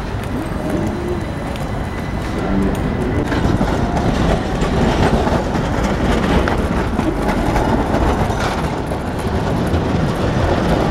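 Modern articulated street tram running past on its rails, a steady rumble with wheel-on-rail clatter that grows louder about two and a half seconds in.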